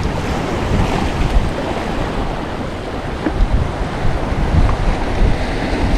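Strong wind buffeting the microphone in uneven gusts, over a steady wash of surf.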